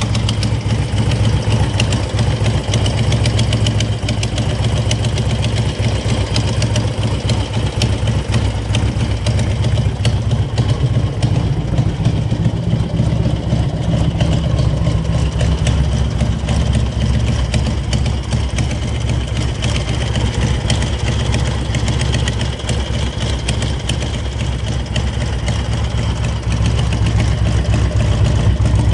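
2002 Harley-Davidson Electra Glide's air-cooled V-twin engine idling steadily.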